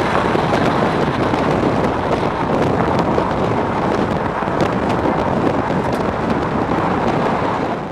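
Steady vehicle rumble with wind noise on the microphone, fading out at the very end.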